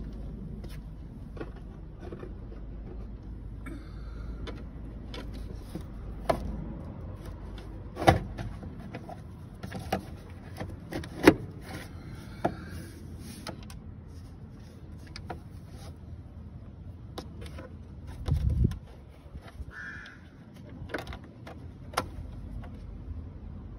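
Scattered clicks and knocks of a metal socket extension and hands handling hoses in a car engine bay, with a dull thump about three quarters of the way through.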